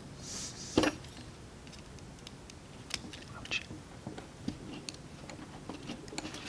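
Small clicks and taps of small carburetor parts and tools being handled on a workbench, with a brief rustle near the start and a sharp click just under a second in.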